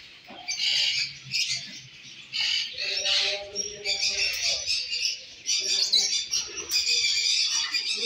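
Many caged birds chirping and squawking together in a dense, high-pitched chatter.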